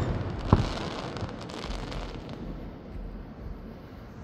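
Aerial fireworks: the rumble of a shell burst fades out, a single sharp bang comes about half a second in, then faint crackling runs for a second or two.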